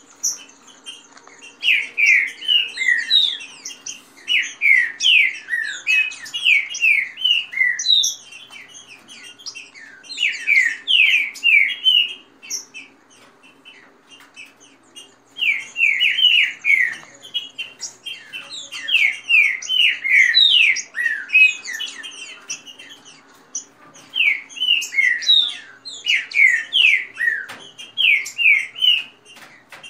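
Caged green-winged saltators (trinca-ferro) singing: loud runs of quick, falling whistled notes in bursts of a few seconds with short pauses between, the birds answering each other in a singing contest.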